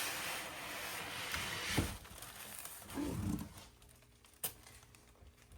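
Cardboard and packing material rustling and scraping as a boxed air compressor is pulled out of its box, fading after a second or two, with a thump about two seconds in and a sharp click later.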